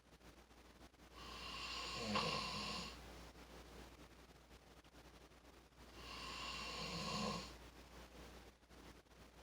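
A sleeper snoring: two long snores about five seconds apart, each swelling up and easing off, the first with a short sharp peak just after two seconds in.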